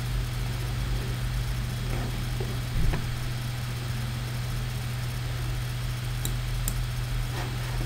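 Steady low electrical hum over background hiss, with a soft thump about three seconds in and two faint clicks a little after six seconds.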